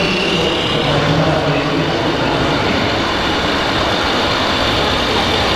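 Steady diesel-truck engine sound from a radio-controlled model American-style semi truck's sound module, over the even din of a busy hall.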